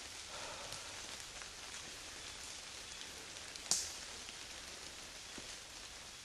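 Light rain pattering on leaves and the forest floor, a steady scatter of small drops, with one sharp click about three and a half seconds in.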